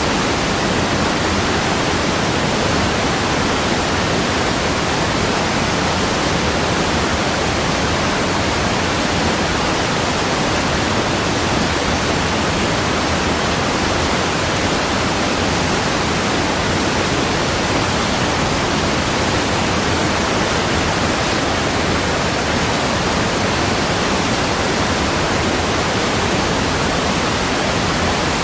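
Steady rushing water: an even, unbroken hiss with no changes.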